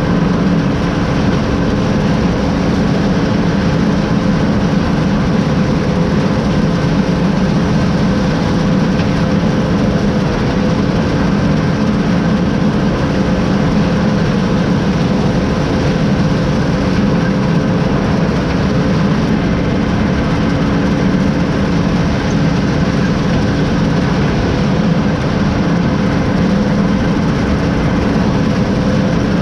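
Combine harvester running steadily while cutting soybeans: a constant engine drone with several steady whining tones over it, unchanging throughout.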